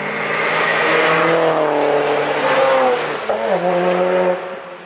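A car passing at speed on a race track, its engine note swelling as it comes by. The pitch drops sharply about three seconds in, then the sound falls away near the end.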